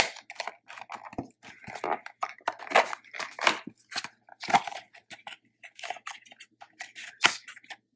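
Product packaging being handled and opened by hand: irregular crinkling and crackling with a few sharp clicks.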